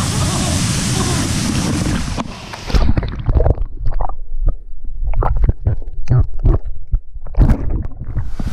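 A steady rushing noise for about two seconds, then a run of irregular low rumbling thumps, like wind buffeting a phone microphone.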